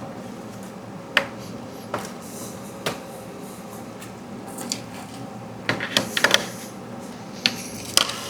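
Light clicks and taps of hand tools and small parts being handled on a 3D printer's frame while the Y-belt tensioner is being loosened, spaced out at first, then a quick run of clicks about six seconds in and a few more near the end.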